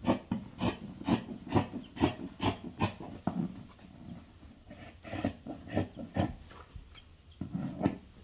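Scissors snipping through printed fabric with repeated cuts, about two snips a second, pausing briefly partway through and then snipping again.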